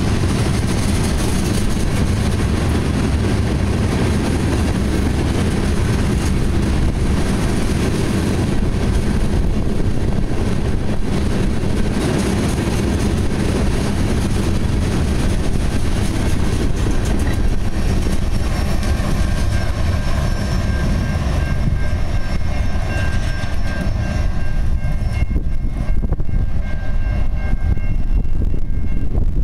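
Loaded crude-oil tank cars and other freight cars rolling past on steel rails, a steady heavy rumble of wheels on track. In the second half the ringing tones of a grade-crossing bell come through, clearer near the end as the last cars go by.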